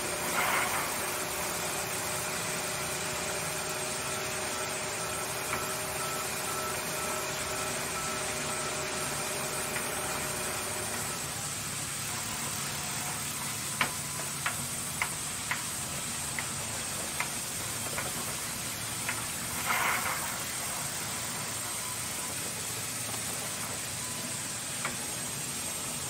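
A band sawmill running, its blade cutting a log, a steady machine noise with a hum that drops away about halfway through. A run of sharp knocks follows, and there are two short louder rushes, one near the start and one later.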